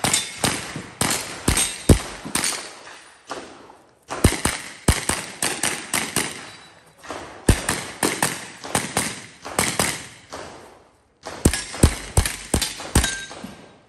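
Pistol-caliber carbine fired in quick strings of shots, several a second, with brief breaks between strings.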